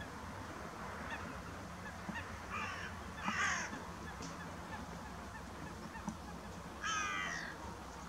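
Wild birds calling across open water: a short call about two and a half seconds in, a louder one just after three seconds, and a longer drawn-out call near the end, with fainter scattered calls behind them over a steady low rumble.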